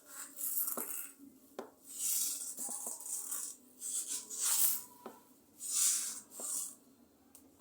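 Hands rubbing over skin in a series of hissing strokes during a massage, with a few sharp clicks.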